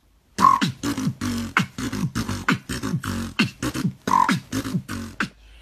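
Human beatboxing: a fast, steady run of vocal kicks with falling-pitch bass sweeps, snare and hi-hat sounds. It starts about a third of a second in after a short pause and stops shortly before the end.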